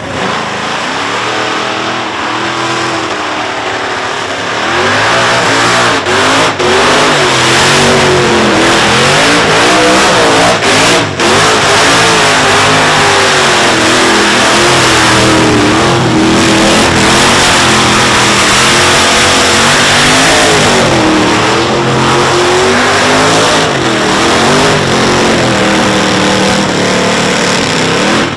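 Supercharged 700-plus cubic inch Chevrolet big-block V8 in a Ford F100 held at high revs through a burnout, its note rising and falling over the hiss of the spinning rear tyres. It gets louder about four seconds in and drops off briefly a couple of times.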